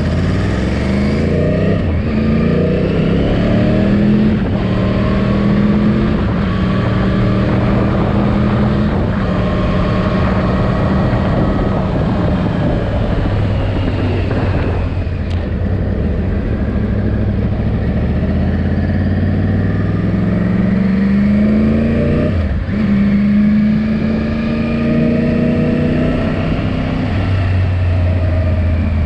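Yamaha R1 sport bike's inline-four engine heard while riding, its note climbing and levelling off several times as it pulls up through the gears, during the engine's break-in.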